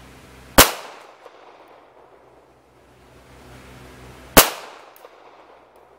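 Two single pistol shots from a CZ 75, about four seconds apart, each a sharp crack trailing off in a brief echo.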